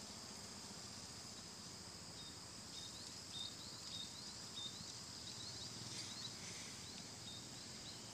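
Faint, steady, high-pitched drone of insects in the field. From about two seconds in, a run of short high chirps repeats roughly twice a second.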